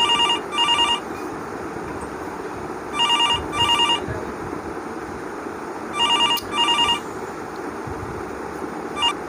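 A telephone ringtone: a double ring repeated every three seconds, four times, each ring a fast trilling tone. The last ring is cut short near the end.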